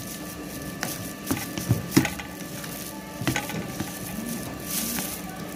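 A spoon stirring thick sooji halwa in a plastic pot, giving irregular scrapes and light knocks against the pot, about half a dozen, over a faint steady hum.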